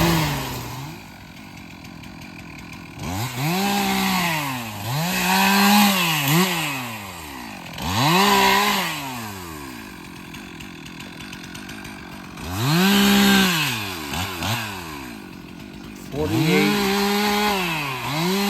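Stihl MS 362 two-stroke chainsaw being revved up to full throttle and let back down to idle about six times, in short bursts as it cuts small trees and brush.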